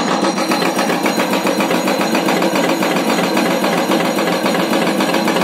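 Hitachi hydraulic breaker on a Hyundai excavator hammering rock, a fast, steady train of evenly spaced blows, over the excavator's diesel engine running.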